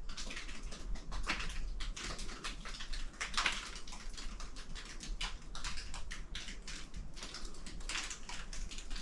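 Footsteps crunching and scuffing on loose quarry ground: a steady run of irregular crackles and clicks.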